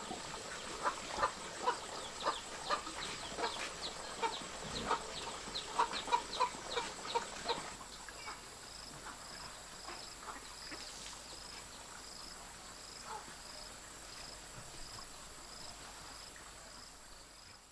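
Chickens clucking in quick, repeated short calls, which stop about seven seconds in. After that a faint, high chirp repeats about twice a second.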